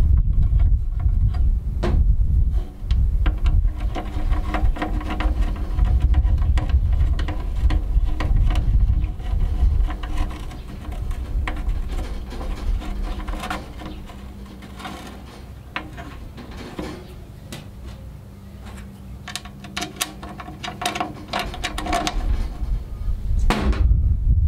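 Hand-work on a stainless steel portable charcoal grill: scattered clinks, taps and scrapes of metal parts, bolts and a screwdriver against the thin stainless sheet metal, over a steady low rumble.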